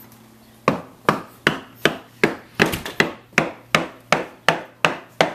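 Steady hammering: evenly spaced sharp blows, nearly three a second, starting about a second in.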